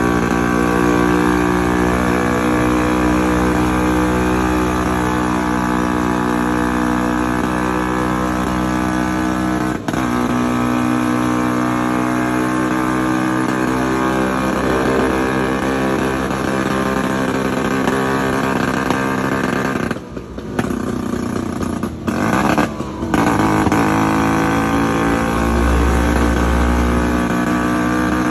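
Two-stroke Vespa scooter engine running steadily at road speed. It drops off for a moment twice, about two-thirds of the way through, then picks up again and climbs slightly in pitch near the end.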